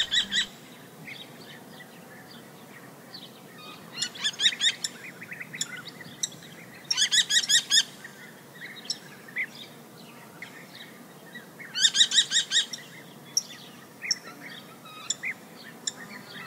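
American kestrel calling: four rapid series of shrill repeated notes, each less than a second long, with scattered fainter chirps between them.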